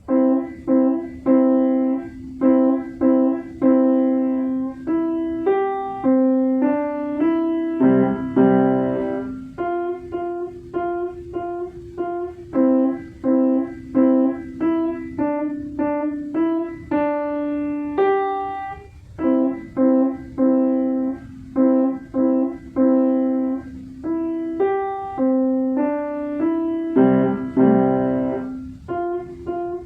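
Solo piano playing a tune, struck notes at about two a second over held lower notes, starting right at the beginning.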